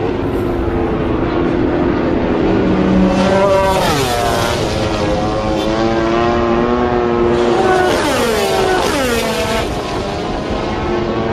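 Motorcycle engines at high revs, their pitch sweeping sharply down around four seconds in and twice more around eight to nine seconds in.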